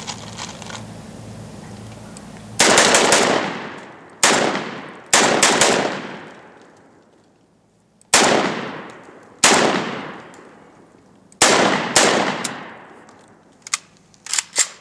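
Saiga 12 semi-automatic 12-gauge shotgun firing double-aught buckshot in a bump-fire attempt: about seven shots at uneven spacing, some in quick pairs and some with gaps of up to three seconds, each trailing off in echo. The shots never settle into a steady fast stream. A few light clicks of the gun being handled come near the end.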